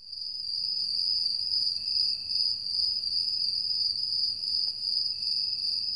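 Crickets chirring in a steady, continuous high trill, fading up quickly from silence at the start.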